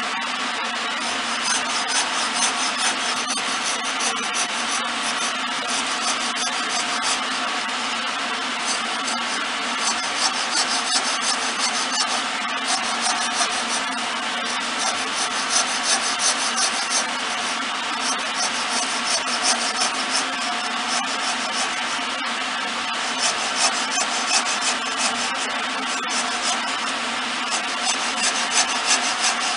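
Small hacksaw blade held against a wooden spindle spinning on a lathe, the teeth scraping and rasping on the turning wood with little surges as the saw is worked, over the steady hum of the running lathe.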